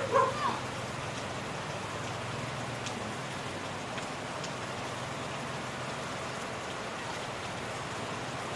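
Steady rain falling, an even hiss. Right at the start a short, loud pitched sound rises over it and is gone within about half a second.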